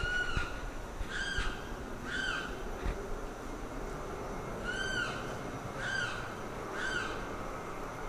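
Limpkin calling loudly: six short calls, each a single note that rises and falls, in two runs of three with a pause of about two seconds between the runs.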